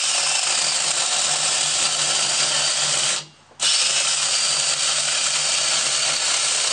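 Battery-powered angle grinder fitted with a chainsaw bar-and-chain conversion, running and cutting into a log. The motor cuts out briefly about halfway through, then picks up again. The owner puts the faltering down to a weak, uncharged battery.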